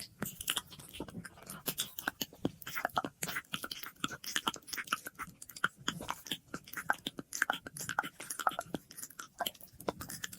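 ASMR mouth sounds: a dense, irregular run of short clicks and smacks of the lips and tongue, with an echo effect on the audio.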